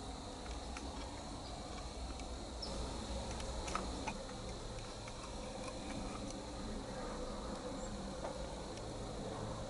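Field ambience with a steady high-pitched insect chorus and a low rumble underneath, broken by a few faint light clicks about four seconds in.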